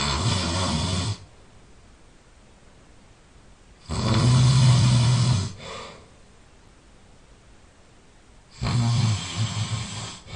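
A person snoring loudly: three snores about four seconds apart, each lasting a second or two, each with a low buzz.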